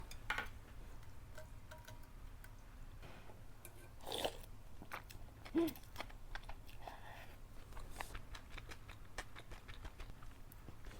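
Close-up eating sounds: a person biting and chewing food, with crunchy bites and small wet clicks, and a short louder mouth sound about five and a half seconds in.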